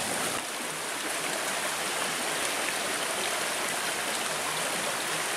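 Small rocky stream running over stones in a shallow riffle: a steady, even rush of water.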